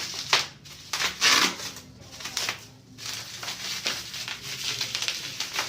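Packaging rustling and crinkling in irregular handling bursts, with a few sharp clicks.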